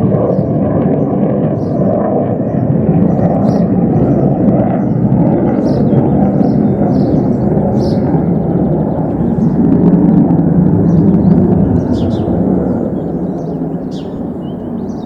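Deep jet noise from a Panavia Tornado GR4's twin RB199 turbofans as the fighter takes off or passes low over the runway, building to its loudest about ten seconds in and then fading as it climbs away. Small birds chirp over the top.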